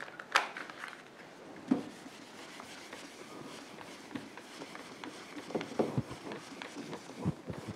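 A felt whiteboard duster rubbing across a whiteboard, with a few soft scattered knocks.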